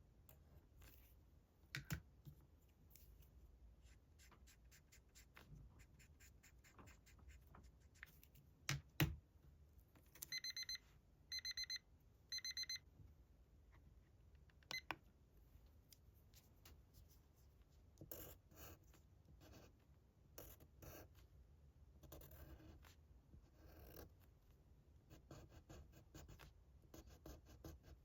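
Quiet scratching and tapping of a pen or marker drawing on paper. About ten seconds in, an electronic alarm beeps three times in quick rapid-pulsed bursts, the kind a digital timer gives when time is up.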